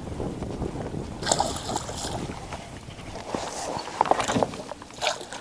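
Wind rumbling on the microphone and water sloshing around a kayak as a hooked fish is brought alongside. There is a short splashing burst about a second in, then a few sharp knocks and splashes near the end as the fish is reached for.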